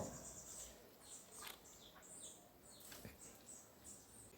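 Faint, scattered bird chirps: a few short calls over an otherwise near-silent outdoor background.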